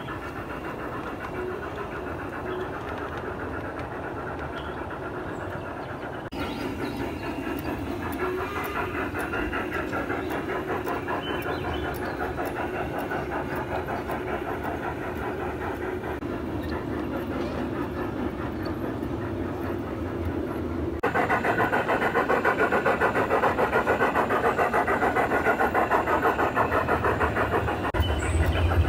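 Large-scale model steam train running, with a rapid, steady chuffing rhythm and the rumble of wheels on the track. The sound jumps suddenly louder about six seconds in and again about two-thirds of the way through.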